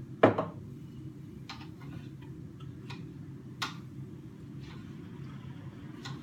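Kitchen knife knocking on a cutting board while slicing tomatoes: one loud knock just after the start, then a few sparse lighter taps, over a steady low hum.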